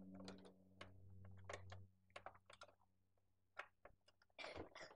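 Small screwdriver turning a screw in a plastic toy's casing, making light irregular clicks and ticks, over a faint steady hum in the first two seconds.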